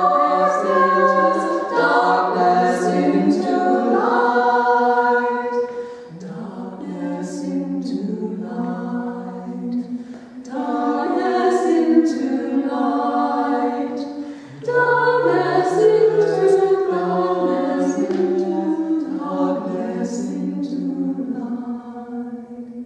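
Women's vocal ensemble of six singing a cappella in several-part harmony, long held chords in phrases, with short breaks between phrases about six, ten and fourteen seconds in.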